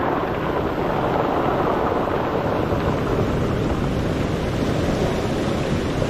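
Surf washing up a beach of rounded pebbles and drawing back, the backwash rolling the stones and rattling them against each other.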